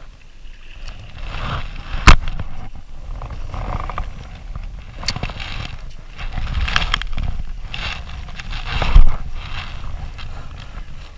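Wind rumbling on the microphone and water splashing around a plastic kayak, with two sharp knocks against the hull, about two seconds in and again near the end.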